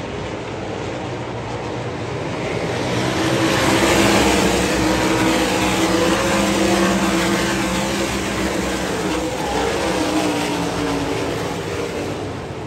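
A pack of 358 sprint cars racing on a dirt oval, several V8 engines blending together as the cars pass close by. The sound swells about two seconds in, is loudest around four seconds, and eases off near the end.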